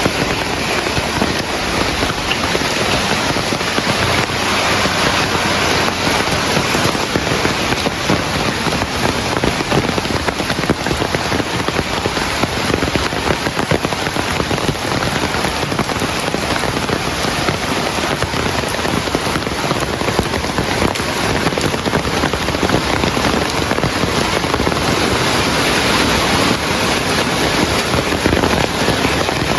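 Heavy rain falling steadily, a dense, even hiss of countless drops striking a surface.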